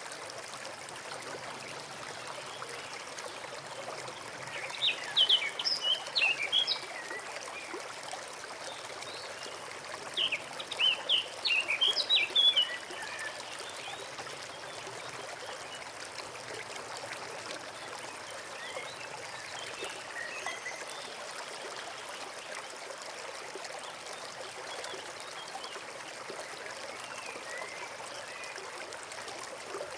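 A small forest stream trickling steadily. A songbird sings two bursts of quick, high chirping notes, the first about five seconds in and the second about ten seconds in, louder than the water; a few faint chirps follow later.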